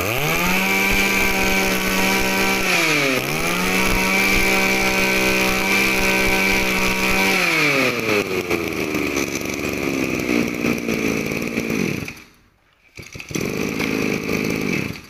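Small 23cc two-stroke brush cutter engine being test-run: it revs up sharply, dips for a moment about three seconds in, holds a high steady buzz, then winds down and dies around twelve seconds. It runs again briefly at a lower, steady pitch near the end before stopping.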